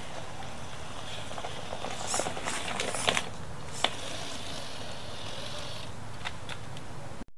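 A 1/8-scale Mad Torque RC rock crawler's motor running as it crawls over lava rock, with small clicks and crunches of stones under its tyres as it passes close, mostly about two to four seconds in.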